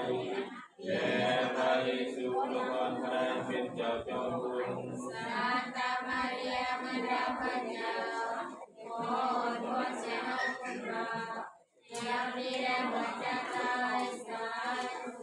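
A group of voices singing a Christian hymn in Thai, phrase after phrase, with short breaks between lines about a second in and again near the end.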